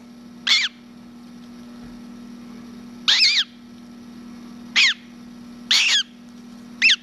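Hatching gull chick peeping: five short, high-pitched calls, each with a quavering, falling pitch, spaced a second or two apart, over a steady low hum.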